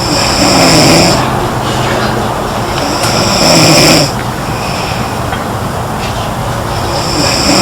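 A girl snoring: loud snores each about a second long, one every three to four seconds, with the third beginning near the end.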